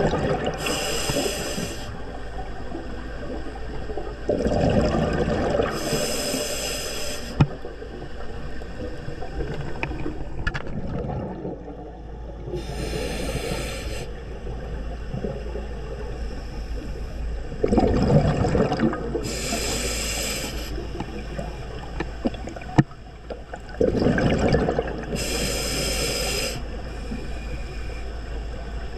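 Scuba diver breathing through a regulator underwater. About every six seconds comes a hissing breath through the regulator and a rush of exhaled bubbles, five breaths in all. Two sharp clicks stand out along the way.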